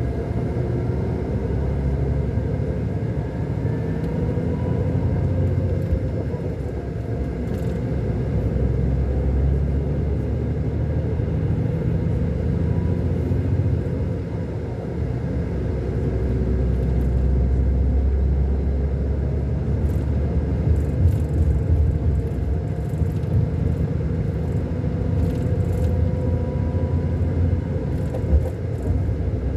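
Scania K400 Euro 5 coach's diesel engine running steadily, a continuous low rumble with faint engine tones drifting slightly in pitch. Light ticks and rattles come through in the second half.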